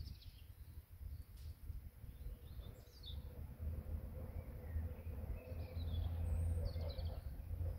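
Small birds chirping in short scattered calls over a low steady rumble, which grows louder about five seconds in; a faint steady hum sets in a few seconds in.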